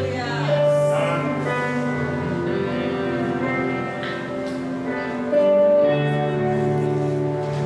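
Slow instrumental worship music: held chords that change every few seconds.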